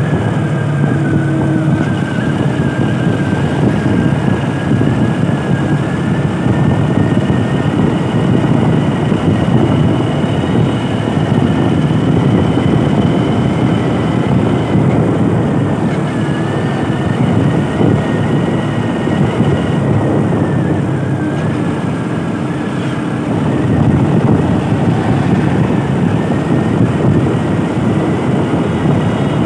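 Motorcycle engine running steadily at cruising speed, heard from the rider's seat with wind and road noise, and a thin, wavering high whine running through it.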